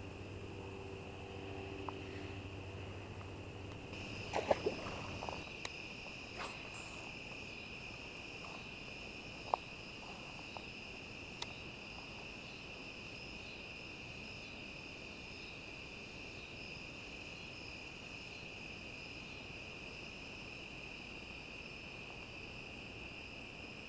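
Crickets trilling in a steady, high, unbroken chorus that comes in about four seconds in. A low hum fills the first few seconds, and a few short clicks and knocks fall around five and ten seconds in.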